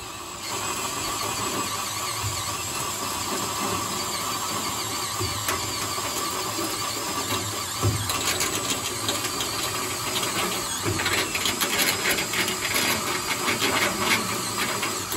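Cordless drill running a step bit through a combine's sheet-metal wall, enlarging a pilot hole to full size. The motor whine and the grinding of the bit are steady at first. From about eight seconds in they turn into a rapid chattering clatter as the bit cuts through the metal.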